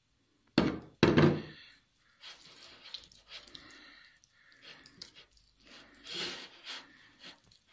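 Two sharp thunks about half a second apart near the start, as a glass olive-oil bottle is set down on a table, followed by soft, irregular rubbing as a hand works oil into a raw beef steak on a ceramic plate.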